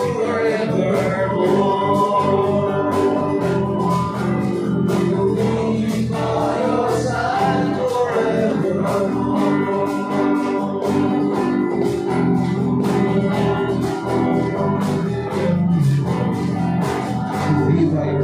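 A live worship band playing a gospel song: a man singing a melody over electric guitar, acoustic guitar and keyboard, with a steady beat.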